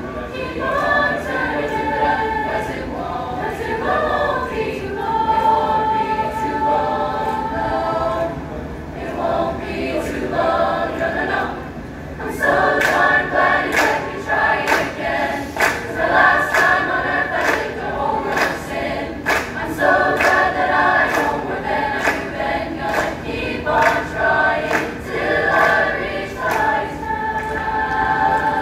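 A large mixed high school concert choir singing, with sustained chords that shift from note to note. About twelve seconds in, sharp percussive taps join at an even beat.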